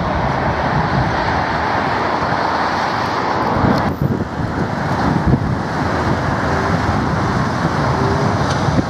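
Busy street traffic: cars and vans passing alongside tram tracks, with a Siemens Combino Supra low-floor tram running past close by at first. The noise changes abruptly about four seconds in.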